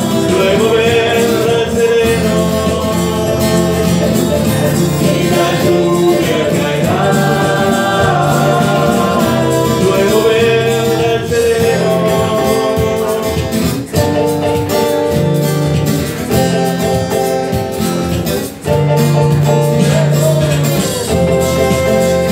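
Live band playing an instrumental passage: a violin carries the melody over acoustic guitar and keyboard.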